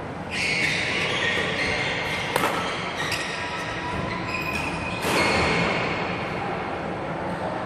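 Badminton rally: a racket strikes the shuttlecock several times with sharp cracks, while sneakers squeak on the wooden court floor between hits. The sound rings in a large hall.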